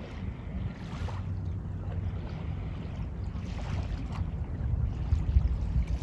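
Wind buffeting the microphone in a steady low rumble, with small lake waves washing softly on the shore.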